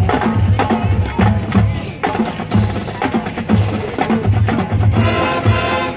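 College marching band playing a funk tune: brass over a drumline, with bass drums hitting a steady beat. Two bright crashes come near the end.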